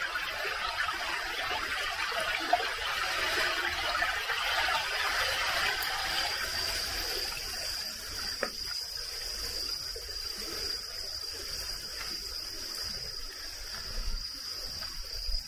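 Running water from a mountain stream, a rushing hiss that fades over the first several seconds, under the steady high trill of insects such as crickets. A single sharp click comes about two and a half seconds in.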